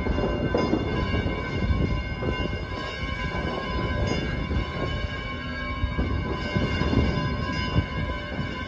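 Outdoor ambience from a high terrace: uneven, gusty low noise like wind on the microphone, under a steady high whine of several tones held throughout.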